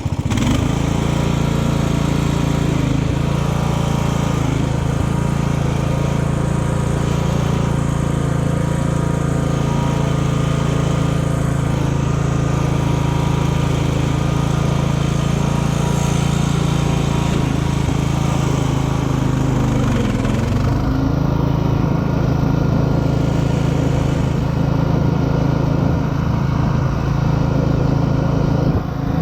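Craftsman LT 1000 riding mower's 17 hp Briggs & Stratton engine running steadily, its pitch dipping briefly about two-thirds of the way through.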